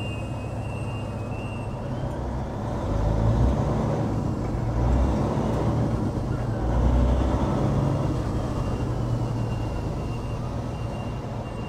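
Diesel engine of a container handler working and revving as it drives up carrying a container, its heavy rumble swelling and easing about three times, over the steady idle of a truck's Caterpillar C15 diesel.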